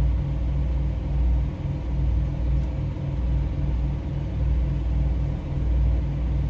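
Semi truck's diesel engine idling, heard from inside the cab: a steady low drone with an even throb.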